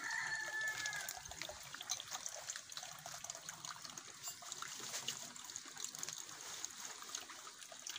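Steady trickle of running water, with scattered small clicks throughout.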